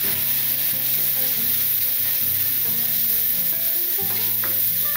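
Diced chicken thigh and minced onion sizzling in oil in a frying pan, stirred with a wooden spatula, with a few scrapes against the pan about four seconds in.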